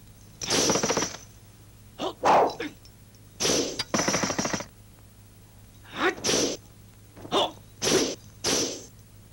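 A fight's run of short, sharp shouts and exhaled grunts, about eight in a row, each under a second, with a breathy hiss.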